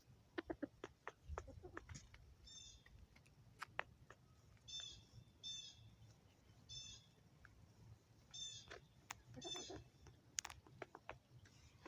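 Chickens pecking at feed, a scatter of faint sharp taps. Through it come six short, high-pitched calls a second or so apart.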